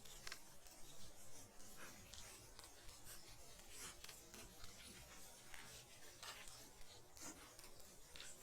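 Faint, irregular soft ticks and rustles of falling snow over a low hiss and a light rumble of wind.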